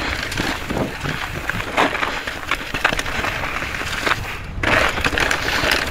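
Electric mountain bike descending a rough snow-covered trail at speed: a constant run of knocks and rattles as it goes over rocks and roots hidden under the snow, over a steady rumble of wind on the microphone.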